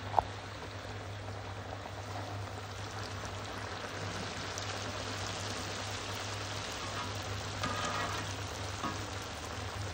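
Sakinalu (rice-flour spirals) deep-frying in hot oil in a wide iron pan: a steady sizzling and bubbling. One sharp click comes just after the start.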